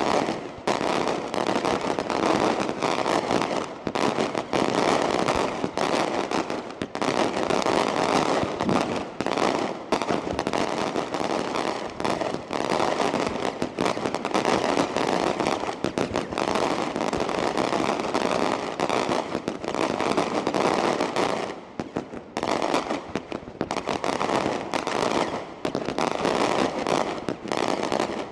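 Daylight fireworks shells bursting in the sky, each breaking into many small reports. Together they make a dense, continuous crackle of bangs, with a short lull about three-quarters of the way through.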